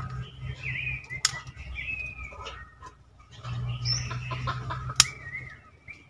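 Birds chirping in short, repeated calls, with two sharp snaps of dry twigs broken by hand, about a second in and near five seconds, over a low steady hum.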